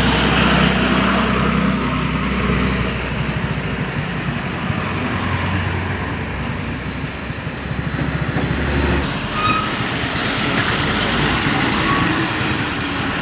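Truck and other vehicle engines running close by in a heavy traffic jam. A steady low engine drone stops about nine seconds in, while the noise of the surrounding traffic goes on.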